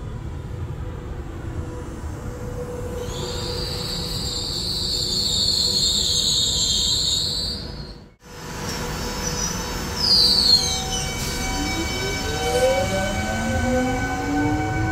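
A train rumbling through a station, with a high metallic squeal from the wheels from about three to seven seconds in. After a sudden cut, an electric train pulls away, its traction motors giving several whines that rise steadily in pitch.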